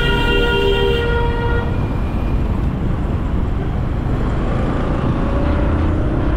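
Heavy wind rumble on the microphone of a motorcycle riding in city traffic. A two-tone vehicle horn sounds steadily at the start and stops about a second and a half in.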